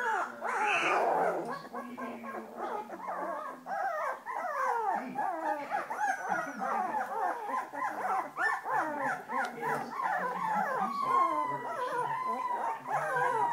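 A litter of puppies, their eyes just opened, whining and squealing together: many short overlapping cries rising and falling in pitch, without a break.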